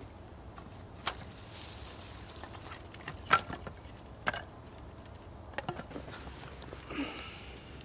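Dry split sticks and bark being handled and laid down as kindling: a series of separate sharp wooden clicks and knocks, the loudest about three seconds in, with light rustling between them.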